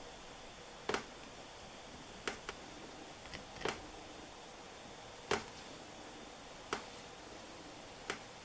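A small hand tool doing fine detail work on a piece of tooled leather, with about eight short, sharp clicks at uneven intervals against a quiet background hiss.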